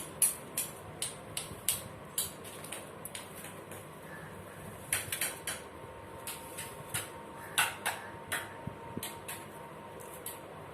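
Fresh coriander bunches being sorted and cut by hand: irregular sharp clicks and snaps of stems, with short quiet gaps between them.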